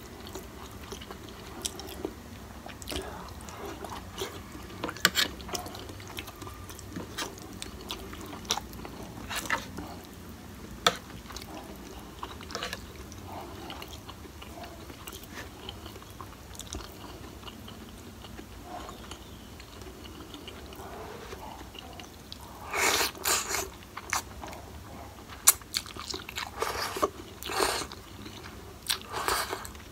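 Close-up eating sounds of a person chewing instant noodle soup and fried tofu, with wet mouth noises and occasional short clicks. Louder slurps of noodles come in several bursts during the last third.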